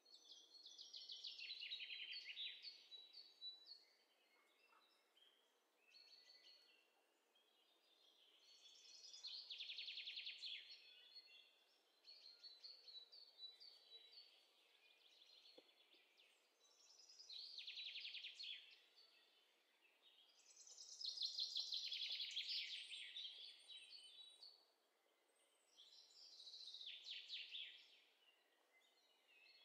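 Faint birdsong sound effect: small birds chirping in rapid trills, coming in about five bursts of two to three seconds each with softer chirps between.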